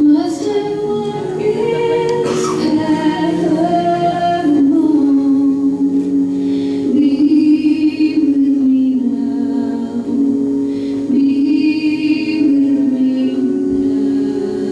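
Song with singing voices holding long notes that move slowly from one pitch to the next, the music a dance is performed to.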